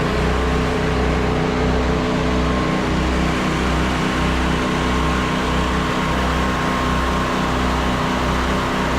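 Engine of a rig-mounted pressure washer running steadily under load, its low hum throbbing about once a second.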